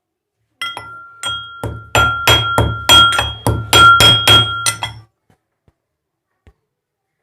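Pestle pounding pieces of heated ginger into a paste in a mortar: a quick run of ringing clinks, about three strikes a second, stopping about five seconds in.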